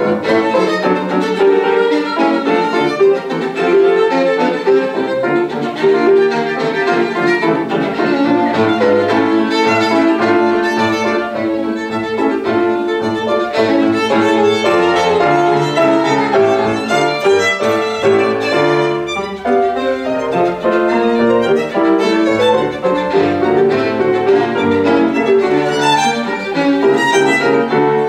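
Violin and grand piano playing a classical sonata together, the bowed violin carrying the melody over the piano, with no breaks.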